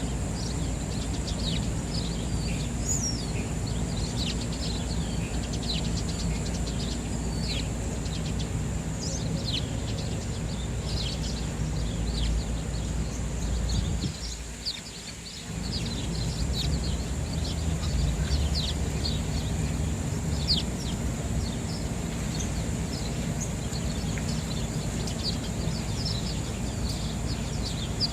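Sparrows chirping, many short overlapping chirps in quick succession, over a low steady rumble of city noise that drops away briefly about halfway through.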